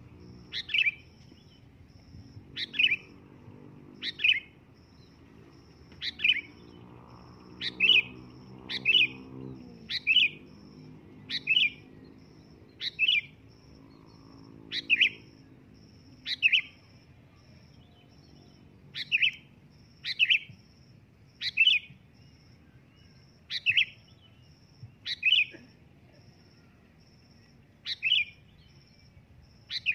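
Sooty-headed bulbul (kutilang) calling loudly: short, sharp, falling notes repeated about every one and a half seconds, sometimes two in quick succession.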